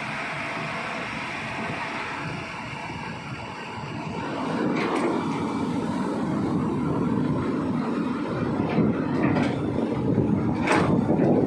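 Hitachi excavator's diesel engine running, rising to a heavier working note about four seconds in, with a few sharp knocks.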